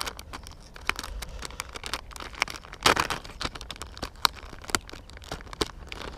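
Plastic soft-bait packet crinkling as it is handled and opened to take out a bait, in irregular crackles with one louder rustle about three seconds in.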